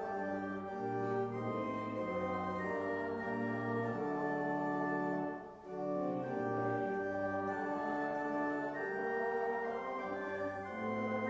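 Organ playing a hymn tune in held chords that change step by step, with a short break between phrases about halfway through.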